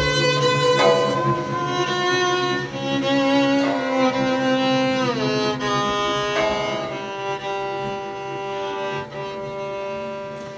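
Improvised experimental music on bowed strings, violin and cello, holding long overlapping notes, with a slow downward pitch slide about five seconds in.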